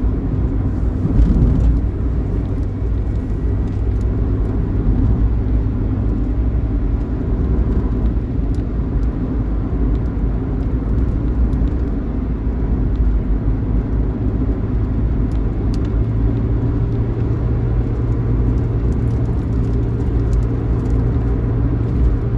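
Steady engine and road rumble of a moving bus, with no marked rise or fall.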